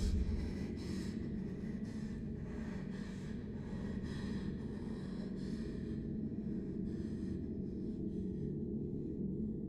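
Low steady hum under a run of soft, quick hissing sounds, about two a second, that fade out near the end.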